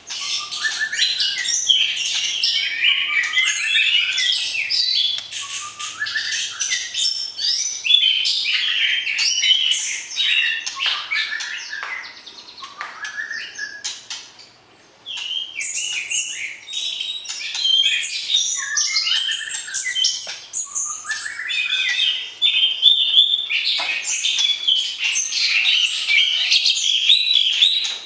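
White-rumped shama singing a long, rapid, varied song of short whistled notes and gliding phrases, with a brief lull about halfway through.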